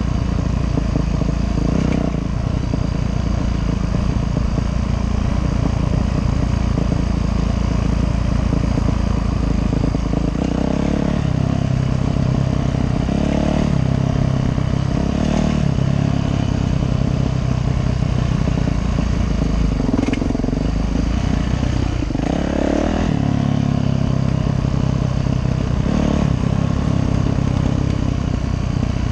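Yamaha YZ450F dirt bike's four-stroke single-cylinder engine running under way, its revs rising and falling repeatedly with the throttle.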